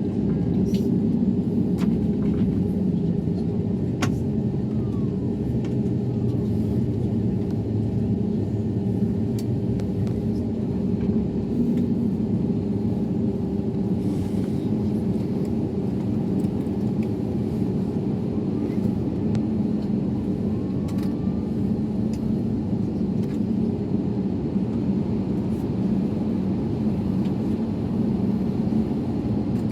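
Steady low rumble of an Airbus A321neo airliner at constant power, with no rise or fall in pitch, and a few faint clicks.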